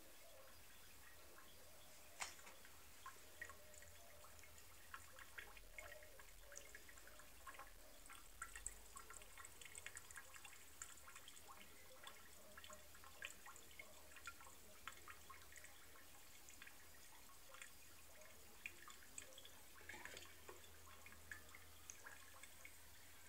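Faint dripping and splashing of a thin stream of water from a bathtub tap falling into the tub, heard as many small irregular drips, with one sharper drip about two seconds in.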